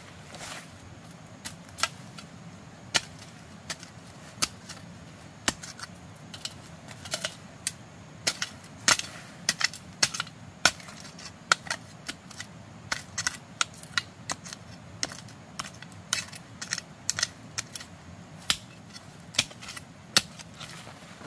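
Series of sharp clacks and knocks from hard objects striking one another, irregular, about one or two a second, over steady low background noise.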